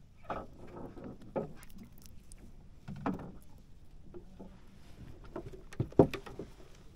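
Close handling noise on a small wooden boat: rustling and light knocks while a fishing line and hook are worked by hand, with a sharp thump about six seconds in.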